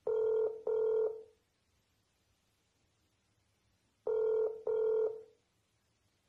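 Outgoing-call ringback tone from a smartphone WhatsApp call on speakerphone, sounding while the call waits to be answered: a double ring of two short steady beeps, repeated once about four seconds later.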